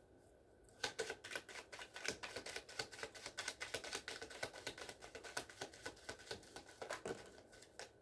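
Tarot deck being shuffled by hand: a fast, uneven run of card clicks and slaps that starts about a second in and stops shortly before the end.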